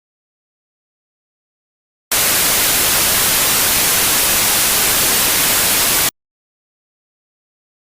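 Static-noise sound effect: a loud, even hiss like a TV tuned to a dead channel, starting abruptly about two seconds in and cutting off suddenly about four seconds later, with dead silence either side.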